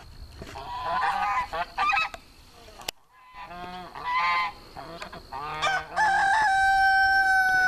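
Domestic geese honking on a pond in several bursts of calls. Near the end a single long, steady tone holds for about a second and a half.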